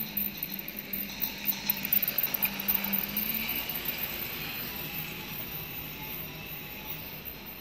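Toy train's small geared motor whirring, with its wheels clicking and rattling over the plastic track as it passes close by. It is loudest about two to three seconds in, then settles to a steadier, quieter whir as the wagons move off.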